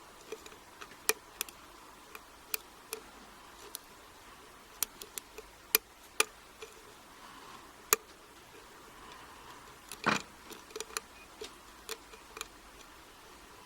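Small, irregular metallic clicks and ticks of a lock pick working the pin stacks of a padlock's euro cylinder under tension, with one louder, longer click about ten seconds in.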